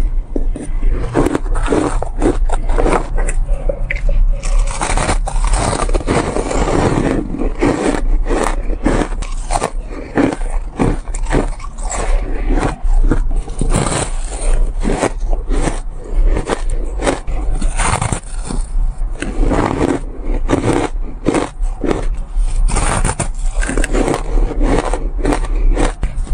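Shaved ice being bitten and chewed close to the microphone: a dense, irregular run of loud crunches with no pauses.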